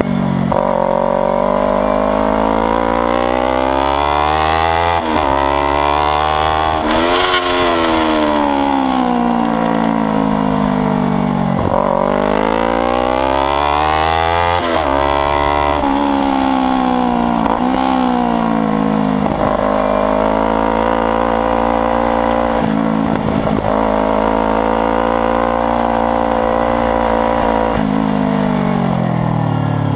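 Kawasaki Ninja 300 parallel-twin motorcycle engine running loud under hard riding. The note climbs steadily through the revs and drops sharply at each gear change, with a couple of longer falls where the throttle is closed, then a run of quick shifts in the second half.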